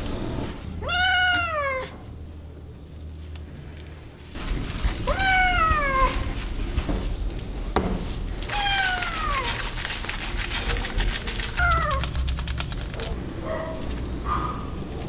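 Wet Persian cat meowing four times while being bathed, each meow falling in pitch, the last one short.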